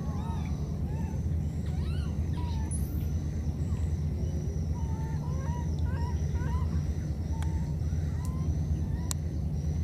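A young animal's short, high, arched chirping calls, repeated irregularly a dozen or so times, over a steady low rumble and a constant thin high whine.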